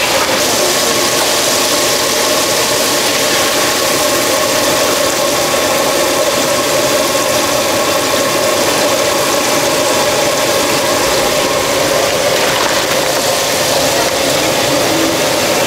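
Chicken pieces deep-frying in a large wok of hot oil, a loud, even sizzle with a steady hum underneath.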